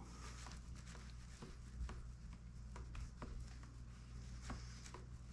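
Faint scuffing and small clicks of hands pressing and rubbing around a subwoofer's rim and the carpeted enclosure it is seated in, over a steady low hum.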